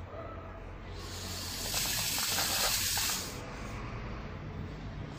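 Hiss of water rushing through a whole-house sediment filter housing under mains pressure, swelling louder for about a second and a half near the middle.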